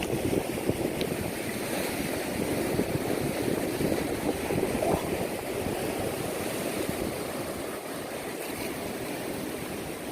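Steady rushing of sea water mixed with wind noise on the microphone, with no distinct events.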